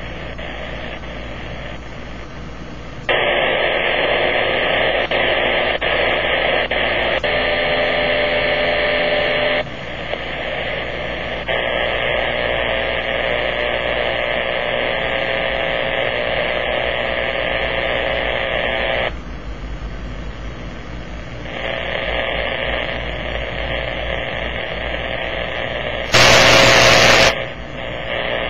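Powerline interference on a Kenwood transceiver's AM receiver: a dense, harsh hiss that jumps up and down in level in several steps as the radio is stepped down from 34 MHz to 22 MHz. A much louder burst of noise lasts about a second near the end. The uploader takes it for powerline noise reaching up into the VHF range, like that traced to a damaged lightning arrestor.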